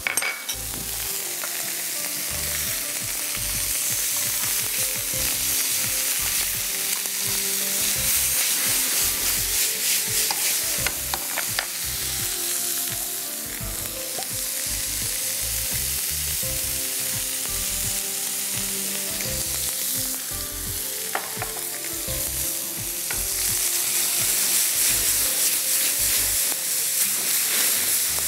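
Food frying in a hot pan: a steady sizzle with scattered small crackles.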